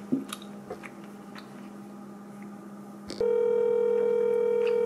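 Telephone ringback tone heard from the earpiece of a smartphone held to the ear: one steady tone lasting about two seconds, starting about three seconds in, the sign that the called line is ringing and not yet answered. Before it, faint room hum and a few small clicks.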